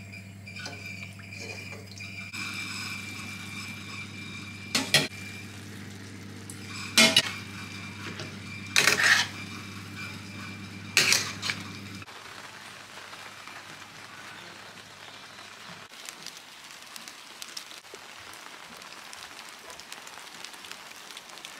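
Cooking spaghetti in tomato sauce in a stainless steel pan: stirring, then about four loud clanks of a utensil against the pan roughly two seconds apart as the pasta is tossed in, over a steady low hum that stops about halfway through.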